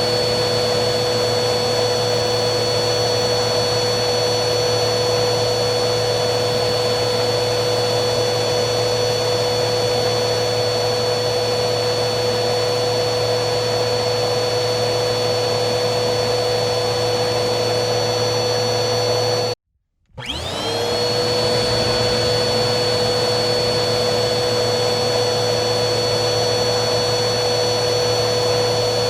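Vacuum cleaner running steadily, its motor whine held over a constant rush of air. About two-thirds through the sound cuts out abruptly for half a second, then the motor starts again, its whine rising back to full pitch within about a second.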